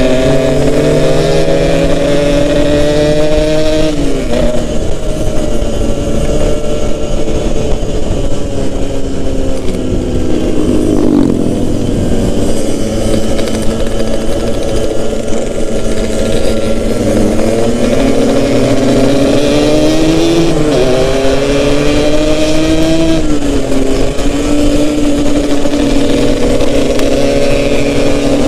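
Yamaha RX-King two-stroke single-cylinder motorcycle engine being ridden, its pitch rising as the throttle opens and falling off sharply several times as the rider shifts or closes the throttle, lowest about twelve seconds in.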